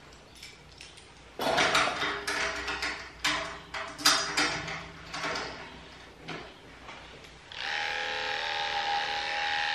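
Electric dog grooming clippers start about three-quarters of the way in and run with a steady buzz as they are worked over a dog's coat. Before that, a few seconds of loud, irregular bursts of sound.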